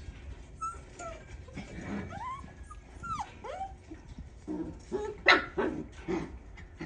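Seven-week-old hunting-dog puppies whining and yipping with high, sliding cries, then a run of short barks in the second half, the loudest about five seconds in.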